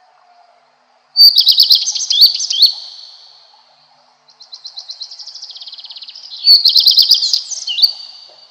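Male common redstart singing two songs. The first comes about a second in: a clear high note running straight into quick twittering. The second starts about four seconds in as a fast, even trill and builds into louder twittering.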